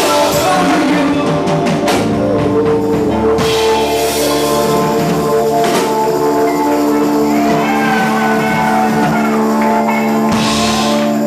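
Live rock band playing: drums and cymbals hit for the first few seconds, then the band holds a long sustained chord with a voice singing over it and a cymbal crash near the end.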